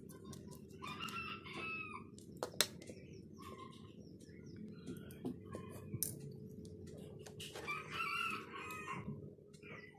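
A rooster crowing twice, about a second in and again near the end, over a steady low hum. Small sharp clicks and taps come from phone parts and a precision screwdriver being handled on the bench.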